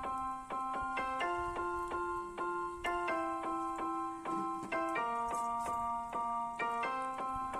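Background music: a keyboard tune of evenly spaced notes over chords that change every second or two.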